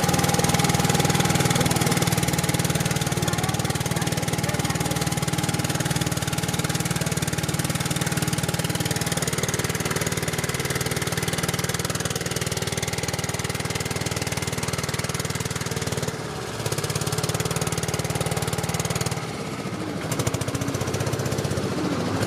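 Motor of a small open passenger boat running steadily under way, with a strong low hum. The level drops briefly twice in the last few seconds.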